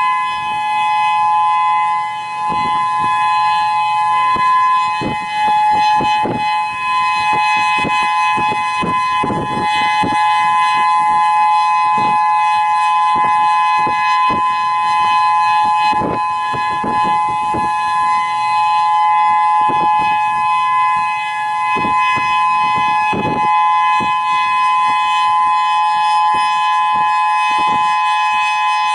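Whelen 3016 rotating electronic warning siren sounding its steady alert, two tones held together at 850 and 1020 Hz. Short gusts of wind buffet the microphone over it.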